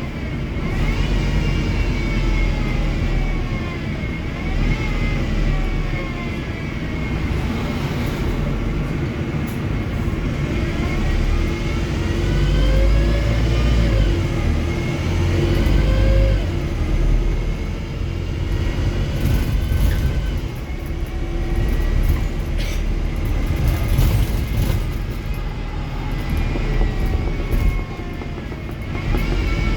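Wrightbus StreetDeck HEV hybrid double-decker bus driveline, with the Mercedes-Benz OM934 diesel rumbling low under high whines that rise and fall repeatedly as the bus speeds up and slows.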